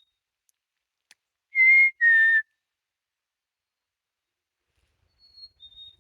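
A person whistles two loud, clear notes, the second slightly lower, calling to a bird; near the end the bird answers faintly with its own higher two-note whistle, the second note dropping.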